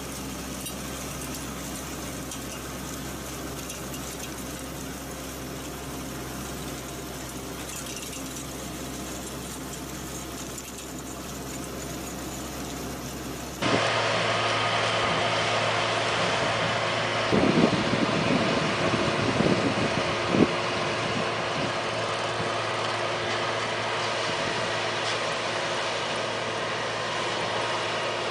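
Small engine of a walk-behind rotary ditcher running steadily as its spinning cutter digs a trench. About halfway through it cuts to a louder tractor engine pulling a rotary tiller through a flooded field, with a few louder bumps a few seconds after the change.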